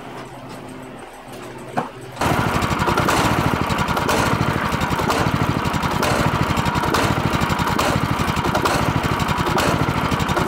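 Small single-cylinder gasoline engine of a homemade go-kart running at a steady idle with a fast, even putter. It cuts in abruptly about two seconds in, after a quiet stretch with one faint click.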